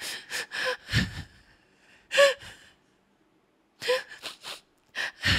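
A woman's voice acting out crying: four bouts of breathy sobs and gasping breaths, with short rising whimpers.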